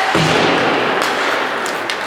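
A single heavy thud against the ice rink boards just after the start, ringing briefly, over the steady noise of the rink.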